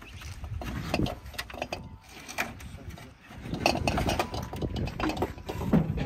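Irregular knocks, clunks and scraping as an upright fridge freezer is heaved up against the steel side of a skip, with boots shifting on wooden pallets. The knocking is busiest in the second half.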